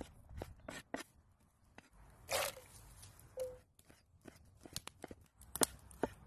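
A large curved kitchen knife chopping on a thick wooden cutting board, first through diced potato, then bacon: a run of short, sharp knocks as the blade strikes the board, with one louder noisy burst about two and a half seconds in.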